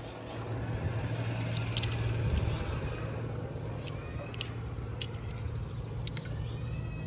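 Outdoor ambience: scattered short bird chirps over a steady low hum, with a thin high steady tone starting near the end.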